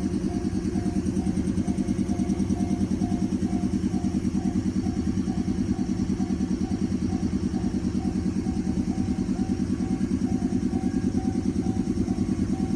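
A vehicle's motor running steadily with a fast low pulsing, under a faint higher tone that repeats about twice a second.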